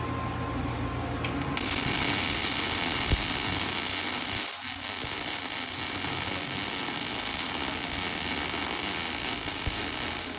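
Wire-feed welding arc struck about a second and a half in, then a steady crackling buzz as the bead is laid.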